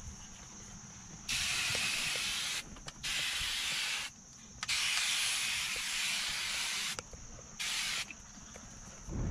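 Aerosol can of foaming glass cleaner spraying onto the inside of a car windshield in four separate bursts. The third burst is the longest, about two seconds.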